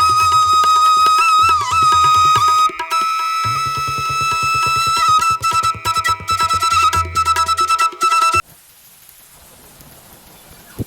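Background music: a held melody over a steady drum beat, which cuts off sharply about eight seconds in, leaving a faint steady hiss.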